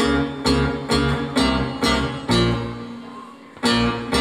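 Acoustic guitar strumming chords in live music: a run of strums about half a second apart, then a chord left to ring and fade before another strum near the end.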